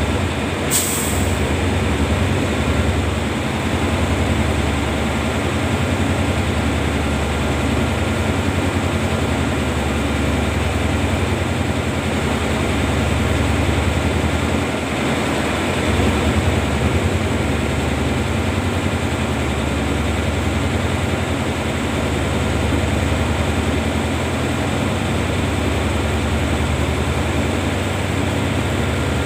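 Diesel-electric freight locomotive (SRT GEA class, D.4512) hauling a freight train, its engine running with a steady low rumble throughout. There is a brief sharp click about a second in.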